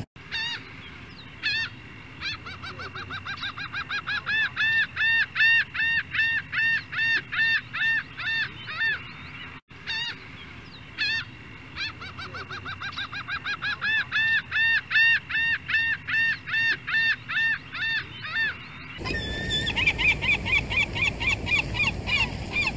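Gull calling in long runs of repeated, arched notes at about four a second, building in loudness, twice over. About four seconds before the end it switches to a different, noisier recording of faster, higher-pitched gull calls.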